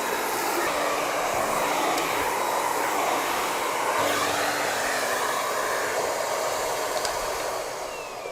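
Miele Complete C3 cylinder vacuum cleaner running with the parquet brush on a hard floor, a steady rushing suction noise that wavers in pitch and fades away near the end.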